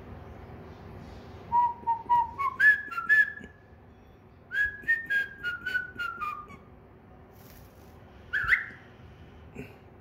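Cockatiel whistling a tune in two short phrases of stepped notes, the first climbing in pitch, the second stepping down, followed by a single short, harsher call near the end.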